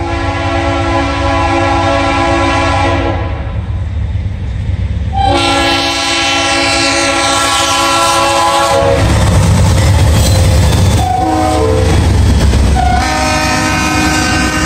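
Norfolk Southern diesel freight locomotive's multi-chime air horn blowing the grade-crossing pattern: two long blasts, a short one, then a long one, with the chord dropping in pitch as the locomotive passes. From about nine seconds in, the heavy rumble of the train rolling by sounds underneath.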